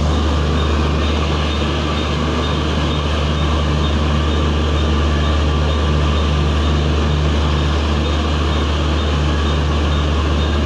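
Steady deep hum of an air-conditioned double-decker express train standing at the platform, its onboard machinery running, with a faint pulsing note over it.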